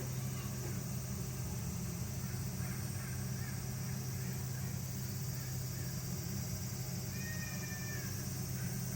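Steady low hum with high hiss and faint distant calls or voices. About seven seconds in comes a single drawn-out call, about a second long and falling slightly in pitch.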